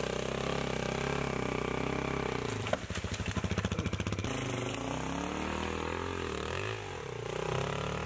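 Dirt bike engine ridden slowly over rough ground, its revs rising and falling with the throttle. About three seconds in, the revs drop low enough that the separate firing strokes can be heard for a second or so; near the end it revs harder.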